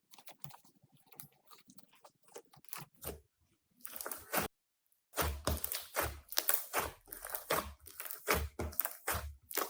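Crunchy slime being squeezed and kneaded by hand, a dense run of crackles and pops. It is softer for the first half, cuts out briefly about halfway, then comes back louder, with dull low thuds under the crackling.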